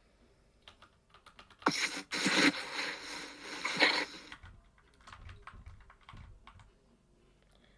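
Computer keyboard typing: a fast run of keystrokes lasting about two and a half seconds, then a few scattered, fainter clicks.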